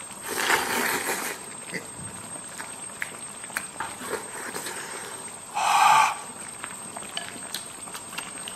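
A person slurping food from a bowl with chopsticks, a short noisy burst about half a second in, then chewing with small smacking clicks. About six seconds in comes a brief, loud vocal sound without words.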